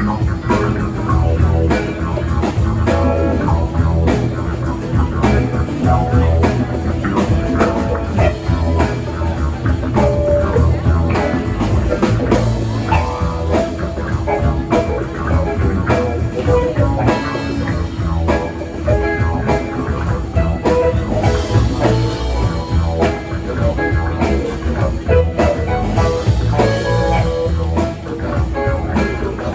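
Live rock band playing a continuous instrumental passage, with guitar over a steady drum-kit beat.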